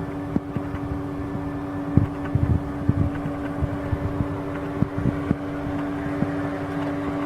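Small electric fan motor of a homemade air conditioner running with a steady hum, with irregular low bumps scattered through it.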